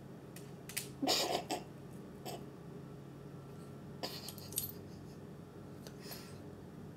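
A small shaggy dog nosing and pawing at a bug on a hardwood floor: a few soft sniffs and light taps on the wood, the loudest about a second in and more around four and six seconds.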